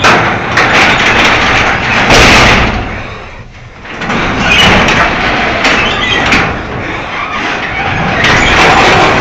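Garage door driven by its electric opener, rumbling and rattling along the track. The noise eases briefly about three and a half seconds in, then rises again.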